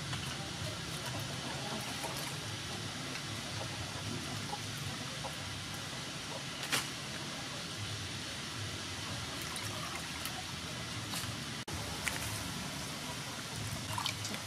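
Water swishing and splashing in a steel bowl as hands wash raw shrimp, over a steady background hiss, with one sharp click about halfway through.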